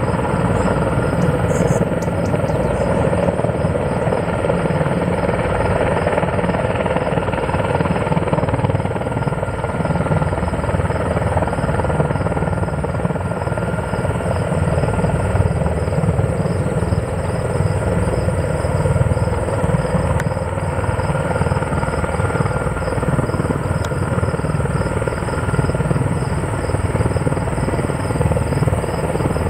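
Erickson S-64 Air-Crane heavy-lift helicopter hovering under load. Its rotors and turbine engines run steadily, a dense low rotor rumble with a thin, steady high whine over it.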